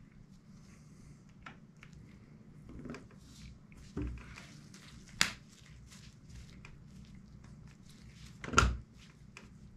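Inline skate bearings being pressed by hand into the wheel hubs: a few soft thumps and knocks, with a sharp click about five seconds in and the loudest thump near the end.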